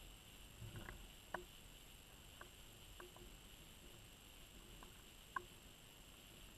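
Near silence underwater: a faint steady hiss, with a few small sharp clicks scattered through it, two of them a little louder.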